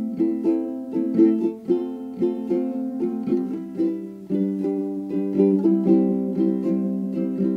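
Background music: a light tune of plucked strings with a steady, even beat.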